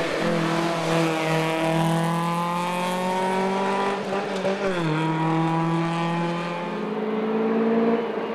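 Datsun 1600 rally car's engine under hard acceleration: the pitch climbs steadily through one gear for about four seconds, drops at a gearshift, then climbs again through the next gear before falling off near the end.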